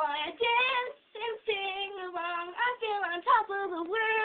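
A young girl singing in short phrases of held notes, breaking off briefly about a second in.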